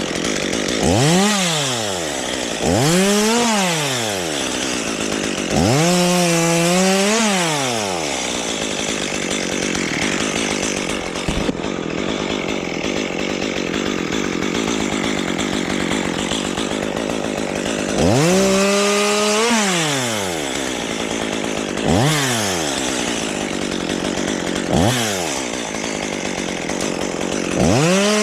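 Chainsaw revved up and down in short throttle bursts, about seven times, cutting into a large sugar maple limb. Between the bursts is a longer stretch of steady sawing.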